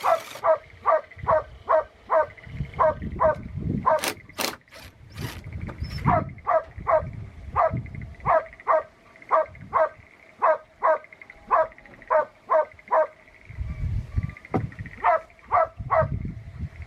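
A dog barking over and over, about two short barks a second, each dropping in pitch. A few sharp knocks sound around four to five seconds in, along with low rumbling.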